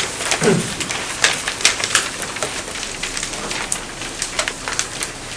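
Irregular crackling with sharp clicks over a steady hiss, and a brief low vocal sound about half a second in.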